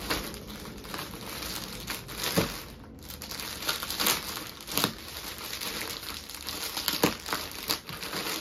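Clear plastic packaging crinkling and rustling as a packet of folded suit fabric is lifted and opened, with several sharper crackles.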